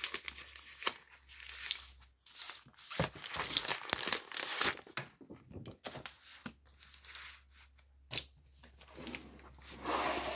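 Clear plastic sleeve crinkling and rustling as a magazine is slid out of it, with a few light knocks and clicks in between.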